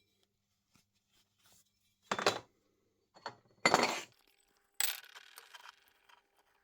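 Metal parts or tools clinking and clattering as they are handled and set down: four sharp knocks, the loudest about two and four seconds in, the last leaving a brief metallic ring.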